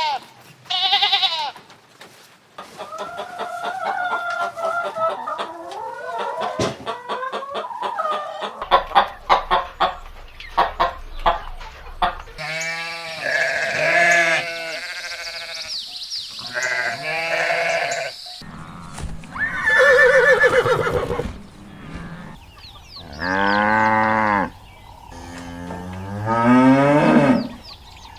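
Farm animals calling in a series of separate cries, mainly goats and sheep bleating, each cry a wavering call of a second or two, with short gaps and changes of background between clips.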